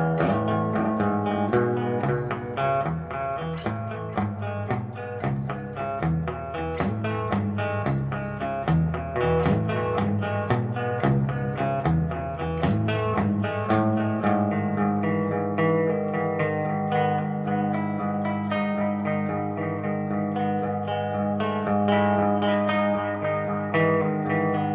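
Ibanez electric guitar played through the clean channel of a Randall Diavlo RD20 tube amp, a steady run of picked notes with a digital delay repeating them.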